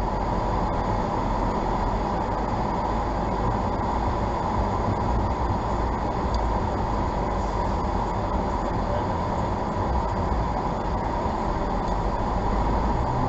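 Steady road and engine noise of a car driving on a snow-covered, slushy road, heard from inside the car's cabin.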